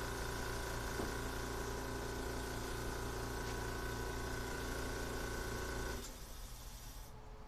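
Air compressor motor running steadily, then switched off about six seconds in, the hum stopping abruptly.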